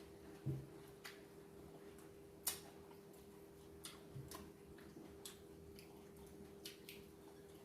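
Quiet eating sounds: scattered, irregular soft clicks and smacks of chewing and handling food, the sharpest about two and a half seconds in, over a steady low hum.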